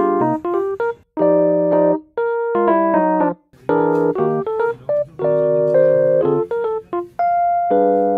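Background music: a light piano tune played in short chords with brief pauses between phrases.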